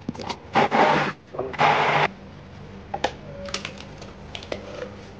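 Immersion hand blender run in short pulses, about half a second each, grinding fried onions, tomatoes, green chillies and yogurt into a paste, for about the first two seconds. Then quieter light taps and scraping as the thick paste is spooned out of the beaker into a pot.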